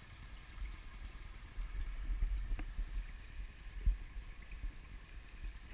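Shallow creek water trickling over bedrock, under an uneven low rumble on the camera's microphone that swells about halfway through.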